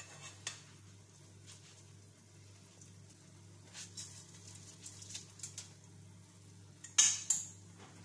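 A wooden spoon works through rice in a stainless steel pot while lentils are tipped in on top, giving scattered scrapes and light clinks. Two sharp knocks on the pot come near the end.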